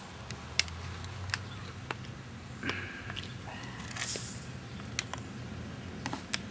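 Caps being twisted off 2-litre plastic soda bottles: scattered sharp plastic clicks, and a short hiss of carbonation gas escaping about four seconds in.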